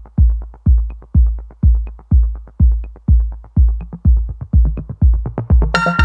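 Electronic background music: a steady drum-machine kick about two beats a second with light ticking hi-hats between, and a bright synth chord coming in near the end.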